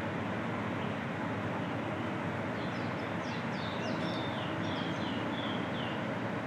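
A small bird singing a quick run of short, falling chirps, starting about two and a half seconds in and stopping near the end, over a steady low background rumble.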